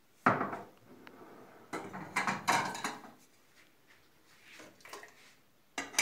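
Kitchen clatter of plates and a metal ladle against a stainless steel pot while rice pudding is dished out. A sharp clink comes about a third of a second in, a run of clattering follows around two to three seconds in, and one more knock comes near the end.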